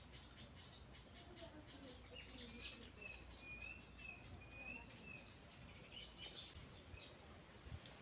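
Faint birdsong: a short run of repeated whistled notes in the middle, over quick high chirping.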